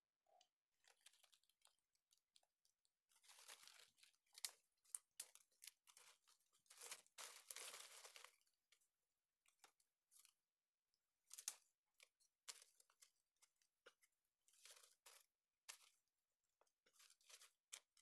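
Faint rustling and crackling of dry bamboo leaves and twigs in irregular bursts with small snaps, as hands work in the leaf litter setting a string bird snare.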